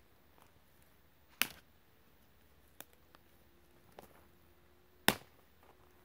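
Dry pine twigs and dead wood snapping as they are broken and pulled up by hand: two sharp cracks, about a second and a half in and near the end, with a few lighter clicks and crackles between.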